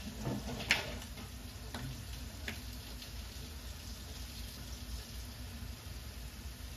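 A few sharp clicks of utensils at a dinner table in the first two and a half seconds, the loudest about 0.7 s in, over a faint steady hiss and low hum.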